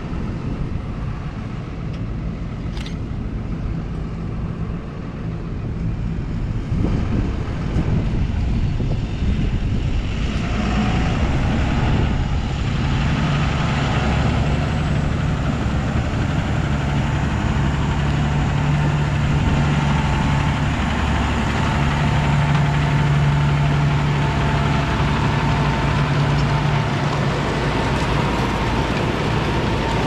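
Case 150 tractor's engine pulling a Lemken five-furrow plough under load, a steady hum that grows louder from about ten seconds in as the tractor draws near and passes close by.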